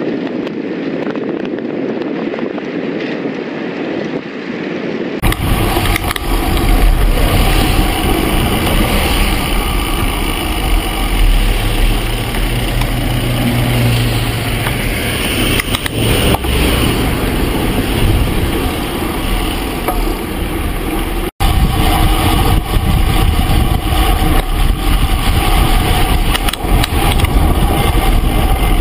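Wind rushing over the microphone of a camera riding along with a group of road cyclists, mixed with road and traffic noise. The sound changes abruptly about five seconds in and again about twenty-one seconds in, where the footage cuts.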